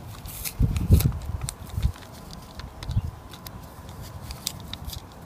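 Paper seed packet crinkling with small crackles as it is fumbled at in the hands, trying to get it open, with a few dull low thumps, the loudest about a second in.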